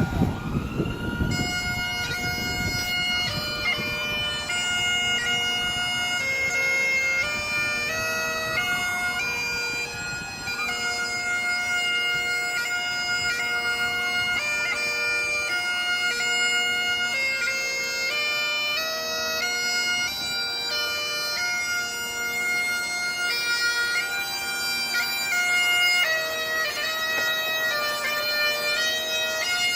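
Bagpipes striking in about a second in, after a brief low rumble. They then play a slow tune on the chanter over their steady drones.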